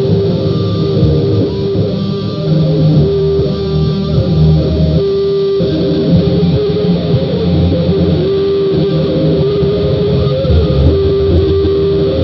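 Guitar-led music with a bass line and long held notes, processed with heavy distortion and reverb.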